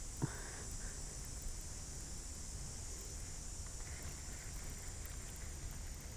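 Faint, steady open-air background: a low rumble and a high hiss, with a single light click just after the start.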